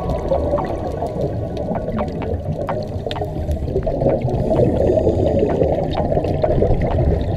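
Muffled underwater wash and gurgle of scuba divers' exhaled regulator bubbles, picked up through an action camera's housing, with scattered faint sharp clicks.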